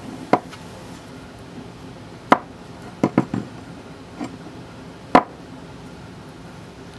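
Machined aluminum part knocking against a wooden workbench as it is handled and set down: a series of short, sharp knocks, including a quick run of three about three seconds in, over steady background hiss.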